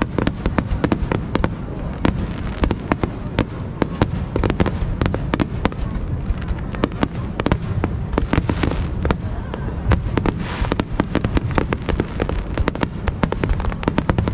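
Aerial fireworks display in a dense barrage, sharp bangs several times a second over a continuous low rumble of booms.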